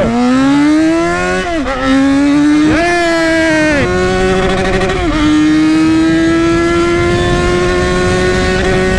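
Yamaha XJ6's inline-four engine under hard acceleration. The revs rise and drop back several times in the first five seconds as it shifts up, then climb slowly and steadily in a higher gear.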